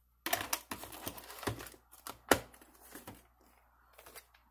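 Plastic clicks and rattles of a VHS cassette and its hard plastic clamshell case being handled, with one sharper click a little over two seconds in.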